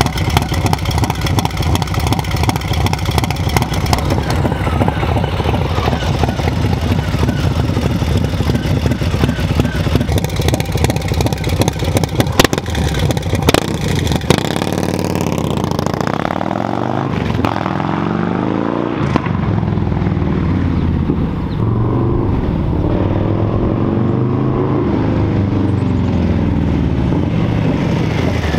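Harley-Davidson Low Rider S's 122 Milwaukee-Eight V-twin with an S&S 475 cam, through a Two Brothers Racing exhaust, idling steadily, with two sharp clicks near the middle. About halfway through the bike pulls away, and the engine climbs and drops in pitch repeatedly as it accelerates through the gears and rides off.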